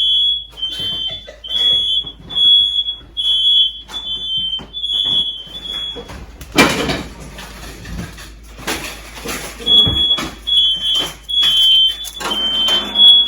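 Smoke detectors beeping: repeated high-pitched beeps in a steady rhythm, two alarms at slightly different pitches, set off by smoke from chips baking in the oven. The beeping stops about six seconds in, a loud whooshing noise follows, and the beeping starts again near ten seconds.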